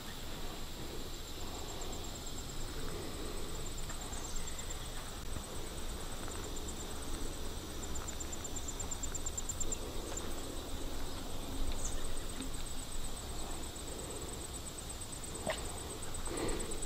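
Slow footsteps through the woods, with a faint, high, rapidly pulsing trill that comes and goes.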